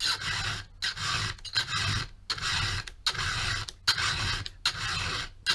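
Round file rasping across the steel cutter teeth of a chainsaw chain, about seven steady strokes with short pauses between. The cutters are being filed down short on purpose.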